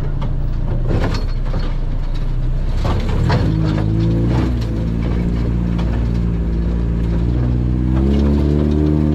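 Off-road 4x4 vehicle's engine running under way, its pitch shifting about a third of the way in and rising near the end as it picks up speed. Several knocks and rattles in the first half.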